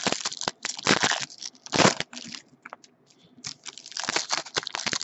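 Trading-card packs and their wrappers being handled and torn open: irregular crinkling and tearing bursts, with a short lull a little past the middle.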